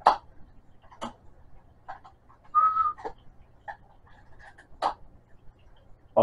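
Several sharp clicks a second or so apart, the loudest at the very start, with one short steady whistle-like tone about two and a half seconds in.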